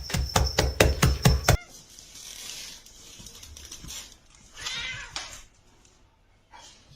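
A quick run of sharp taps or clattering knocks, about eight in a second and a half, cuts off abruptly. After a quieter stretch, a cat gives one short meow.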